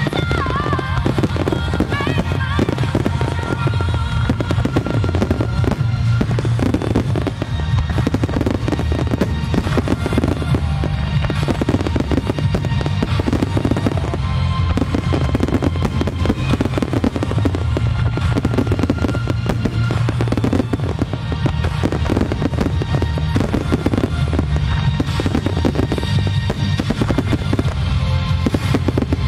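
A fireworks barrage of many aerial shells and low-fired comets going off at once, in a dense, unbroken run of bursts and booms, with music playing along with it.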